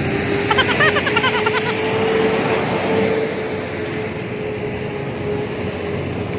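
Busy road traffic, with jeepneys and motorcycles running in a steady wash of engine and road noise and a constant hum. A brief warbling call or tone rises over it about half a second in and lasts about a second.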